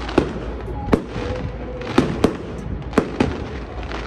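Aerial fireworks bursting: about six sharp bangs in four seconds, some in quick pairs, over a steady background rumble.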